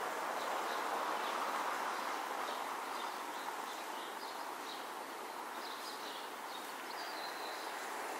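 Steady outdoor background noise with short, high bird chirps scattered through it, coming more often in the second half.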